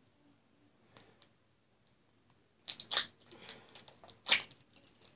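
Sharp kitchen knife cutting into a plastic tube wrapper. A few faint clicks come first, then bursts of plastic crackling and scraping about three seconds in, with the loudest sharp crackle a little past four seconds.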